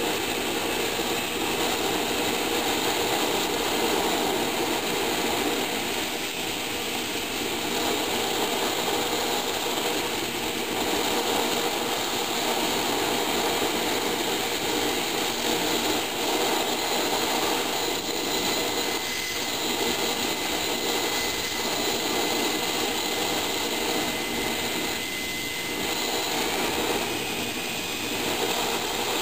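Hago siphon-nozzle oil burner firing: a steady, loud roar of the burning oil spray from the burner tube, with only small rises and falls in level.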